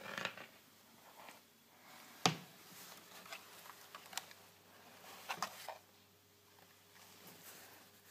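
A coax cable and its connector being handled: faint rustling and scraping with a few sharp clicks, the loudest about two seconds in.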